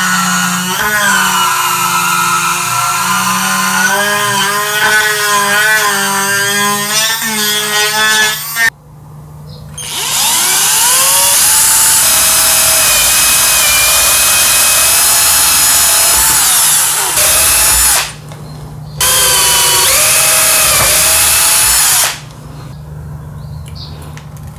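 Cordless electric screwdriver driving screws into a plastic tub's base, its motor whine wavering in pitch under load, stopping about nine seconds in. A power drill with a step bit then bores ventilation holes through the plastic in two spells with a short pause between. It stops a couple of seconds before the end, leaving faint handling clicks.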